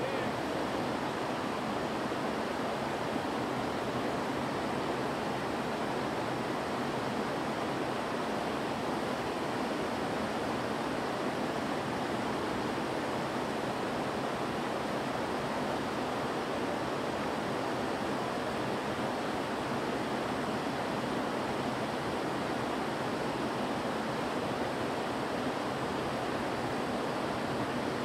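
River water rushing steadily over a rocky bed, an even unbroken noise.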